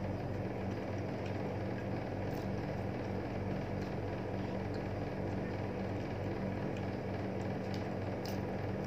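Steady low machine hum, like a small appliance motor running, with a few faint light clicks.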